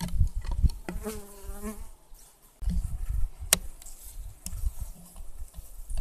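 Honeybees buzzing from a wintering colony as its wooden ceiling boards are lifted, the buzz coming and going in short stretches, with one sharp knock of wood about three and a half seconds in. The colony is restless, humming through the winter, which the beekeeper puts down to the cluster sitting high on sealed honey and getting chilled below.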